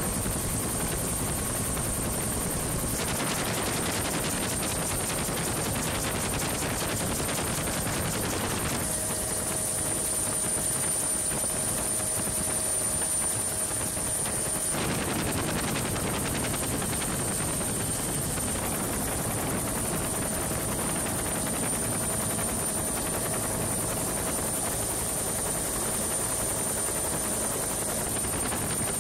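Helicopter in flight heard from inside the cabin: a loud, steady engine and rotor noise with a fast, even rotor flutter and a high whine over it. The sound changes abruptly a few times.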